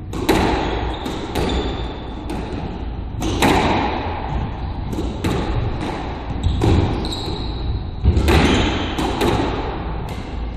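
Squash rally: the ball is struck by racquets and smacks off the court walls in a quick, irregular series of sharp hits, each echoing in the enclosed court.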